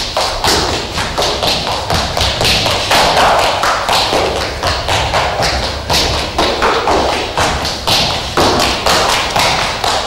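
Running footsteps on a hard stage floor: a quick, steady run of thuds and taps, about three a second.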